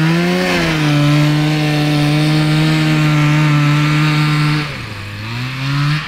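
Kawasaki 440cc two-stroke snowmobile engine in a go-kart revving up and held at high, steady revs, then dropping off about four and a half seconds in before revving up again near the end.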